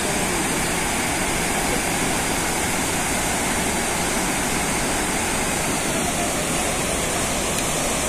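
Large waterfall in flood: a steady rush of muddy water pouring over wide rock ledges.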